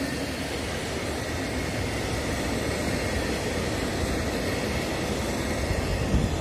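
Freight train of container flat wagons rolling past, a steady noisy rumble of wheels on rail, with a brief louder thump near the end.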